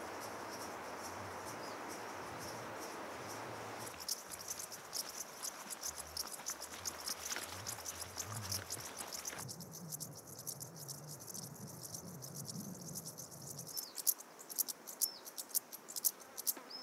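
Field insects chirping in summer grass: a dense, fast, high ticking that sets in about four seconds in, after a steady soft hiss, and grows sharper and louder near the end.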